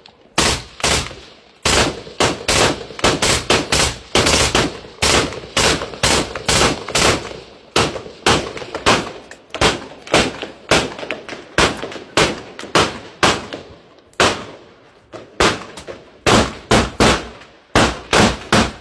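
Gunfire: sharp shots, singly and in short irregular strings, about two to three a second, with brief pauses, each with a short echoing tail.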